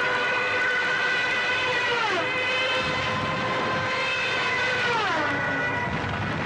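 A siren sounding: a steady wailing tone that drops in pitch twice, a little after two seconds and again about five seconds in, over a low rumble.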